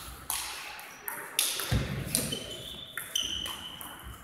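Table tennis rally: a string of sharp clicks from the celluloid ball striking bats and table, roughly every half second. High squeaks from shoes on the sports-hall floor run through the second half.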